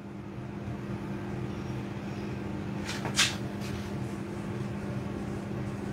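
Two short scratchy strokes of a marker on a whiteboard about three seconds in, over a steady low room hum.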